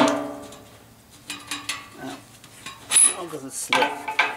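Metal clanks and clinks from a furnace blower being worked on by hand: a sharp clank at the start with the sheet-metal housing ringing briefly, a few lighter knocks, then a louder clank about three seconds in and more knocks near the end.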